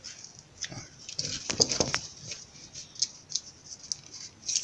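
Irregular light clicks, taps and scrapes from glued wooden box parts being handled and lined up, with a metal bar clamp being set against the box near the end.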